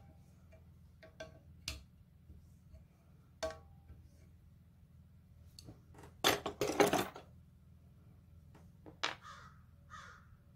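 Hand tools clinking on an engine's cast-iron cylinder head while its valve springs are worked on, with a louder metal clatter of about a second a little after six seconds in, as a wrench is set down among other tools on the workbench. Three short rasping sounds come near the end, over a faint steady hum.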